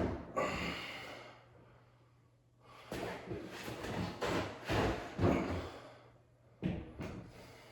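Irregular knocks, scrapes and handling noises from hands-on work with an interior door and its frame, coming in bunches with a quieter pause about two seconds in.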